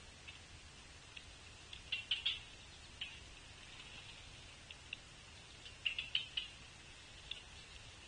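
High, short chirps from a small bird at the feeders, coming in two quick clusters about two and six seconds in, with single chips between.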